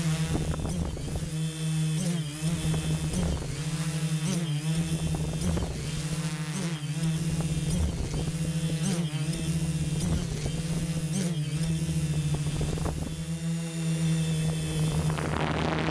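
Tarot Iron Man 650 quadcopter's Turnigy Multistar brushless motors and propellers buzzing steadily in flight, a low hum with higher tones that waver about every two seconds as the motors' speeds shift against each other. Wind rushes over the microphone near the end.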